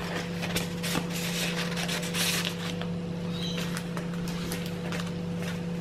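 Paper pages and card tags of a handmade junk journal rustling and sliding as they are handled and turned, with a few light taps, over a steady low hum.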